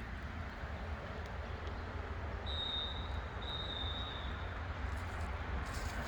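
Outdoor ambience: a steady low rumble under a haze of noise, with two short, high, steady whistled notes about halfway through.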